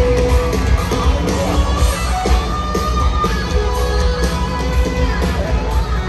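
Live band music played through a stadium PA, heard from among the crowd: guitars over heavy bass and drum hits.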